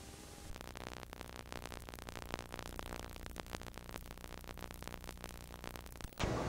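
VHS videotape playback noise: a steady hiss with a low hum and dense, rapid crackling static, typical of a blank stretch of tape before the recording starts. Shortly before the end it cuts abruptly to louder room sound as the recording begins.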